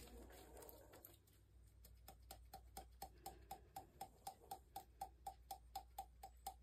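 Faint, rapid, even clicking, about five a second, starting about two seconds in: a stirring stick knocking against the sides of a cup as paint is mixed.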